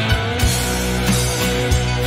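A rock band playing an instrumental passage: a drum kit beat with cymbal hits over sustained electric guitar and bass.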